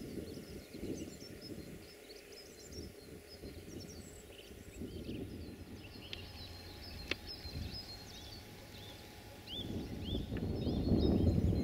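Small birds chirping and calling in quick short notes, over a low rushing outdoor noise of wind or the nearby river that grows louder near the end. A single sharp click sounds about seven seconds in.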